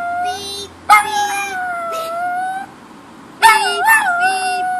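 Dog howling: long, held notes that start sharply and sag slightly in pitch, one about a second in and another from about three and a half seconds on. A fainter, evenly repeating short tone sounds underneath.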